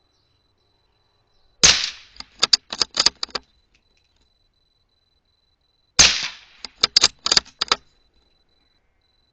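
Two shots from a CZ 452 bolt-action rifle in .17 HMR, about four seconds apart. Each shot is followed by a quick run of about five sharp clicks as the bolt is worked to chamber the next round.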